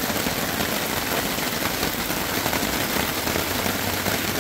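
Heavy rain falling steadily on a tarp overhead, a dense, even hiss with no let-up.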